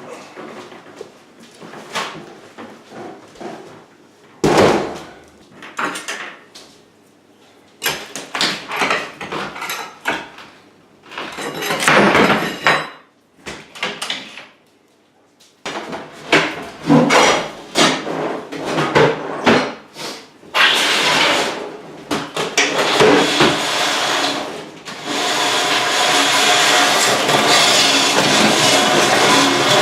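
Kitchen demolition: a run of knocks, bangs and scraping as wooden cabinets and debris are pried and pulled apart, with a denser, steadier scraping noise in the last few seconds.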